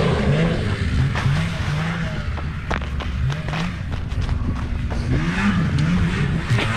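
Snowmobile engine revving up and easing off again and again, its pitch rising and falling about once a second, with scattered clicks.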